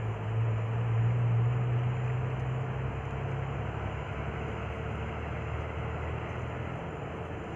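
A low, steady engine hum, strongest in the first few seconds and dropping lower in pitch about three seconds in, over a faint hiss.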